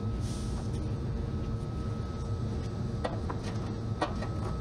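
Light clicks of a bolt being handled and fitted into a fender's lower mounting bracket by hand: a couple about three seconds in and a sharper one about four seconds in, over a steady low hum.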